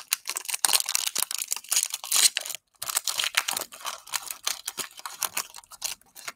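Crinkling and crackling of a Panini Prizm basketball card cello pack's plastic wrapper as hands work it open, a dense run of sharp crackles with a brief pause about three seconds in.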